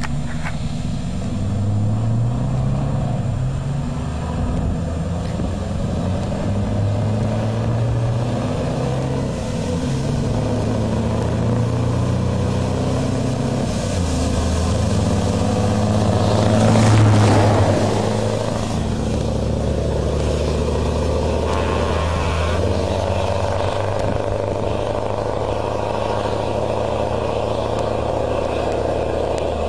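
Steady low drone of a moving vehicle's engine and road noise, its pitch shifting up and down a few times. About halfway through it swells into a rush as two oncoming trucks, a Scania and a Volvo, pass close by, then settles back to the drone.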